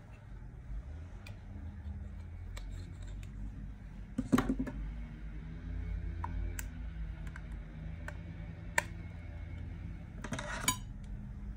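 Plastic makeup compacts handled by hand: scattered light clicks and taps, a louder clatter about four seconds in, one sharp click near nine seconds as a compact lid is opened, and a brief rustle near the end.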